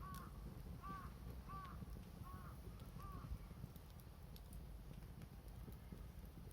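A crow cawing five times in a steady series, about one call every three-quarters of a second, stopping about three seconds in. Faint scattered clicks sound over a low rumble.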